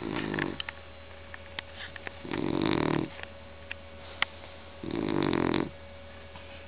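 Shar-pei snoring in its sleep, one snore about every two and a half seconds, each lasting under a second. A few faint clicks fall between the snores.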